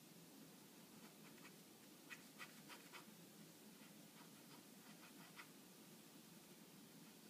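Faint scratching of a pen on paper: short quick strokes, a cluster about two seconds in and another around five seconds, over a low steady background hum.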